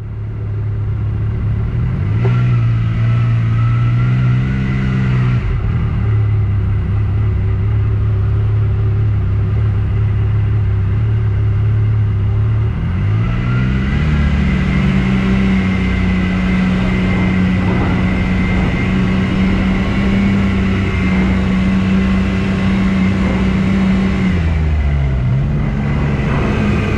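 Off-road vehicle engine running under way. Its pitch rises as it speeds up, holds steady, then drops as it slows, several times over.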